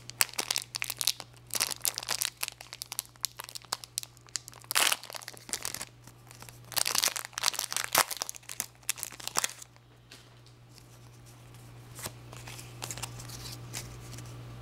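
Foil trading-card pack wrappers crinkling and tearing as packs are opened by hand, in bursts of crackling for about the first nine seconds, then quieter handling. A steady low hum runs underneath.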